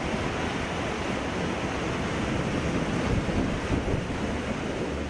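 Steady rushing noise of the Bagmati River running in flood, with wind on the microphone.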